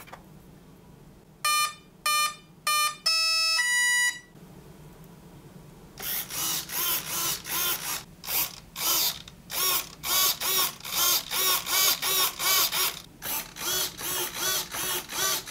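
Brushless ESCs give their power-on beeps as the 3S LiPo is connected: three short electronic beeps, then two longer tones. From about six seconds in, 9-gram micro servos whir in short repeated bursts, about two a second, as the transmitter sticks drive the control surfaces back and forth.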